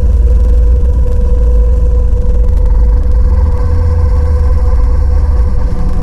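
Dark sci-fi ambient drone: a deep, steady rumble under a held mid-pitched tone, with fainter higher tones coming in near the end.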